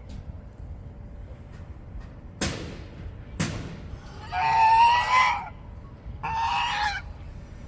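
A person making high, squeaky sounds through the nose with the mouth kept shut: two short, sharp sniffs, then two pitched squeals, the first longer and slightly rising, the second shorter.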